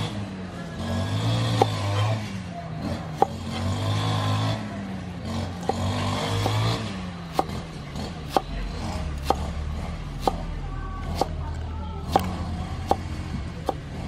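Steel cleaver chopping herbs on a wooden cutting board: sharp knocks of the blade on the board, a few spaced ones in the first half, then a steady run of about one and a half a second from about halfway. A motor vehicle engine runs in the background during the first half.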